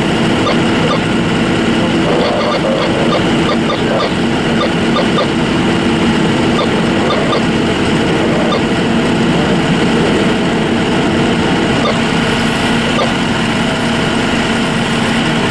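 Fire truck engine running steadily, a constant loud drone with a low hum.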